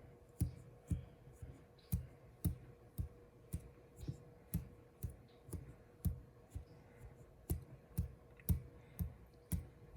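Whisk mixing salt into flour in a bowl, clicking against the bowl about twice a second in a steady rhythm.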